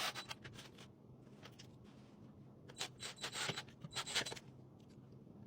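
Faint scraping and rubbing of wooden shelf pieces being handled during assembly, in a few short clusters, most of them a little past the middle.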